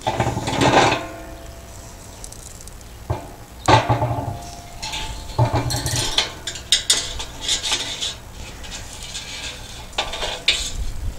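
Steel cooking grate and rebar hanging rods clanking and scraping against the steel drum of a Pit Barrel Cooker as they are handled. A few of the clanks ring briefly, and a quicker run of clinks comes in the middle.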